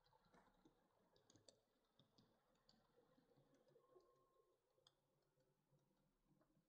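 Near silence with faint, irregular clicks from a model train's wheels running over the rail joints and points of a model railway layout.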